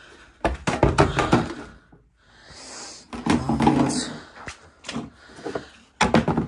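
Knocks and clatter of boxes and a plastic storage tote being handled and shifted, in three bursts of quick knocks with short pauses between.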